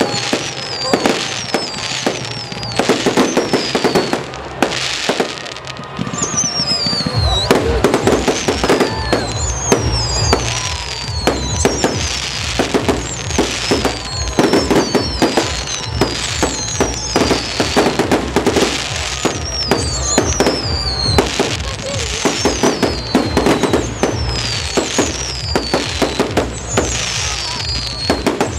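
Fireworks display: a rapid, continuous run of aerial shell bangs and crackles overhead, with high whistles falling in pitch about once a second.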